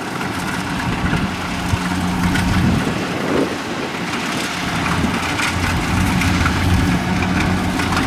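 Diesel engine of a Kubota DC70 rice combine harvester running steadily, a low hum with a rough mechanical noise over it, growing slightly louder toward the end.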